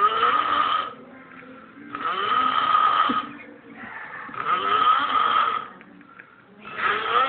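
Snoring: four snores about two and a half seconds apart, each lasting about a second, with a whistly tone running through each one.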